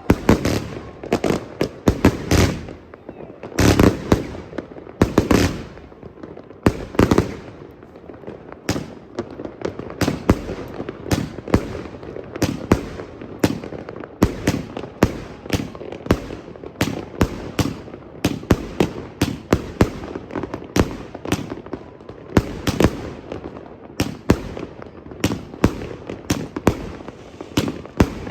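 Extreme Fireworks 'Excalibur' consumer fireworks cake firing its shots, a mix of angled shots and heavy 50 mm shells. It is a steady run of sharp bangs, about one to two a second, with the loudest ones in the first few seconds.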